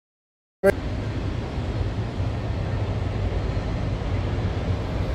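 Dead silence, then about half a second in a click as the sound cuts in, followed by a steady low rumble with a faint hiss above it: unchanging background noise on a camera's microphone.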